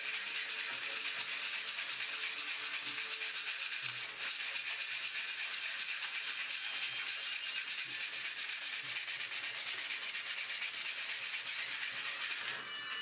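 Steady, rapid back-and-forth scrubbing of an abrasive pad over a steel axe head, scouring the metal surface.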